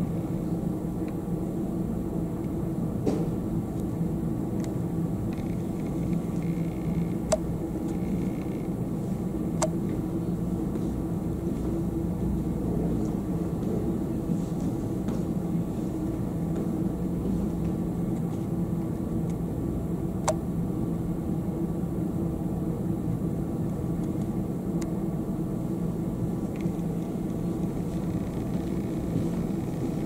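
A steady low mechanical hum with a constant pitched drone, broken by a few sharp faint clicks.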